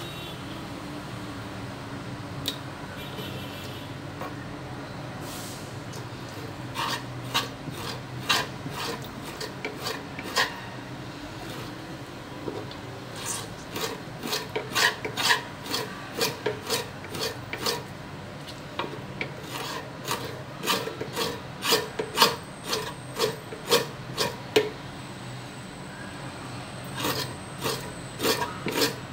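Hog intestine being scraped with a small hand tool against a wooden cutting board, in runs of quick rasping strokes, a few a second, with short pauses. It is the casing being scraped clean, a stage in making sausage casing.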